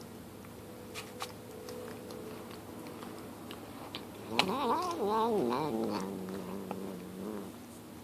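Domestic cat making a long, low, drawn-out moaning vocalisation. About four seconds in it swells into a louder, wavering, warbling yowl, then settles back to a held lower tone and fades.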